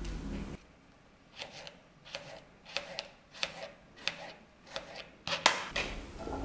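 Small paring knife cutting radishes on a plastic cutting board: a dozen or so quick crisp taps as the blade goes through the radish onto the board, the loudest about five seconds in.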